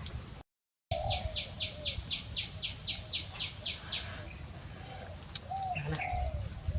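A bird calling in a fast run of about a dozen high, evenly spaced chirps, about four a second, lasting some three seconds, over a low rumble. A few faint, short lower calls follow, and the sound drops out briefly just before the chirping starts.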